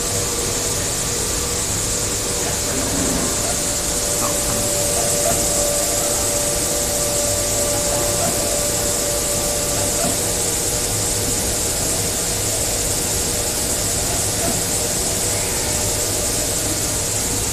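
CNC flatbed digital cutting machine running: a steady hiss with a constant hum beneath it.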